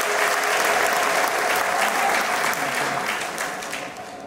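Theatre audience applauding, a dense patter of many hands clapping that dies away near the end.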